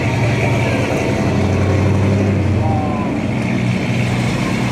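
1965 Pontiac GTO's V8 exhaust running as the car pulls away slowly, a low exhaust note that swells about two seconds in.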